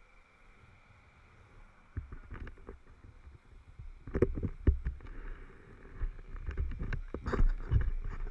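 Irregular close knocks, clunks and scuffing from handling the motorcycle with its engine off, starting about two seconds in and loudest near the middle and the end.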